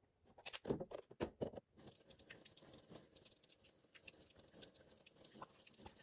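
A few knocks and clicks of things handled at a bathroom washbasin, then about two seconds in a tap starts running into the basin, a steady hiss with light splashing as someone washes their face.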